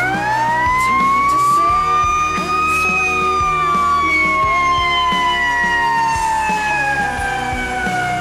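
Fire engine siren winding up, climbing quickly to its highest pitch about three seconds in, then slowly falling in pitch as it winds down. Background music plays underneath.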